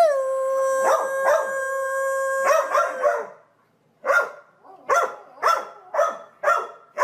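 A dog howls once, holding a single pitch for about three seconds, then after a short pause barks in a quick run of about two barks a second.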